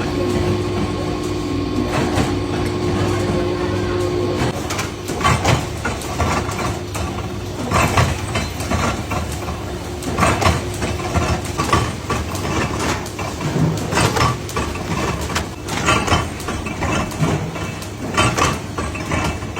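Soap factory machinery running with a steady hum, then irregular clattering and knocking from about four seconds in.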